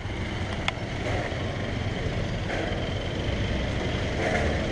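Street traffic passing close by: jeepney and truck engines and motorcycles, a steady low rumble, with a short click under a second in.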